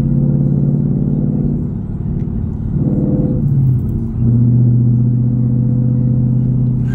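Ford Mustang GT's 5.0 V8 exhaust droning inside the closed cabin while driving, through a C&L muffler-delete axle-back and H-pipe. A steady low drone wavers and dips near the middle, then holds a louder steady note from about four seconds in.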